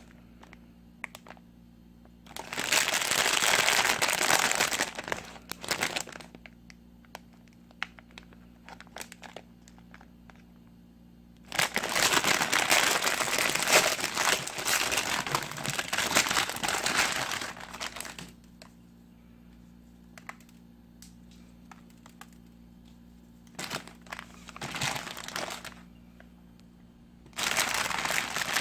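Crinkly plastic packaging being handled in several long bouts of crinkling, with quiet gaps and small clicks between them.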